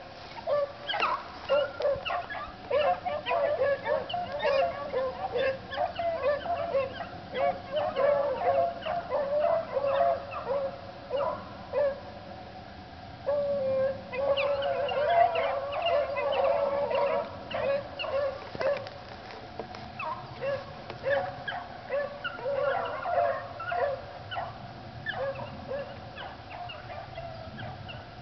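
Hounds baying in a steady stream of short, overlapping calls, with a brief lull and then a louder run of longer howls about halfway through.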